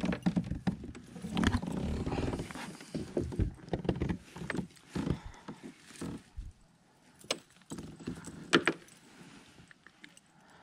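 Irregular knocks, clicks and rattles of handling on a kayak, busiest in the first six seconds, with a couple of sharp clicks later and quieter near the end.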